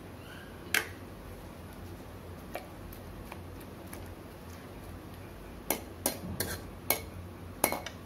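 A metal spoon clinking against a metal kadhai while stirring rose petals in water: a couple of single clinks early, then a quick cluster of five or so sharper clinks from about six seconds in.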